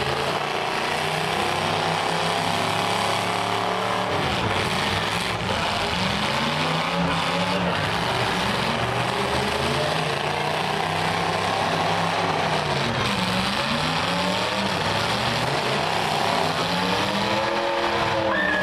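Demolition derby cars' engines running hard together, several engines revving up and down in pitch over each other as the cars ram and manoeuvre.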